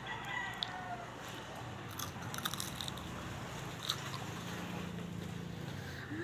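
Close-up crunching and chewing of a fried pork lumpia (Filipino spring roll), with a few sharp crunches about two seconds in and again near four seconds, over a steady low hum.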